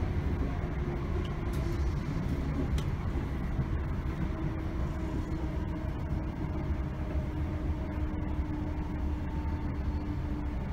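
Class 321 electric multiple unit running between stations: a steady low rumble of the train in motion, with a faint steady whine that fades out near the end.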